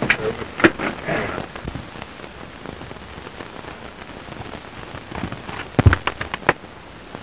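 Steady hiss of an old optical film soundtrack. A couple of knocks and a short vocal sound come in the first second or so, then a quick run of four or five sharp knocks about six seconds in.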